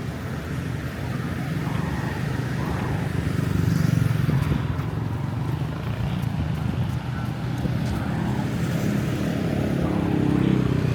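Road traffic: motor vehicles running close by, a steady low engine rumble that swells about four seconds in and again near the end.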